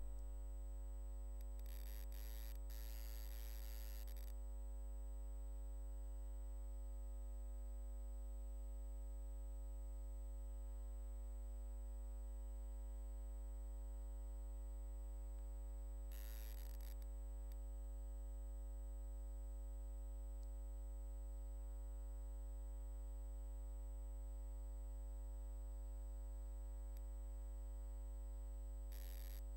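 Steady electrical mains hum with a buzzing edge, unchanging throughout, broken by short bursts of hiss about two seconds in, at about sixteen seconds, and near the end.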